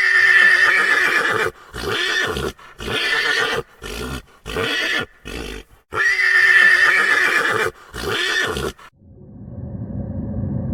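Horse whinnying twice: each time one long wavering call followed by a run of shorter calls. A low steady sound takes over near the end.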